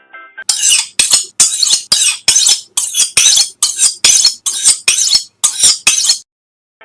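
A sound effect made of a quick run of loud, hissy bursts, a little over two a second, starting about half a second in and stopping sharply about a second before the end.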